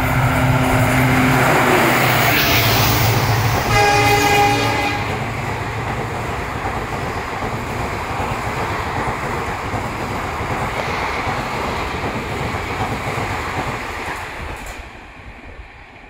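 Express train passing at speed: the locomotive's engine goes by close and its horn sounds once for about a second, then the coaches rush past in a steady loud rumble that fades in the last couple of seconds.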